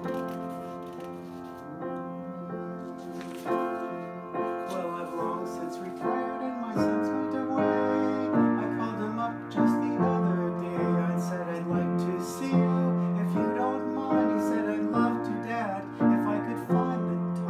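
A grand piano playing an instrumental passage: chords over bass notes that change every second or two.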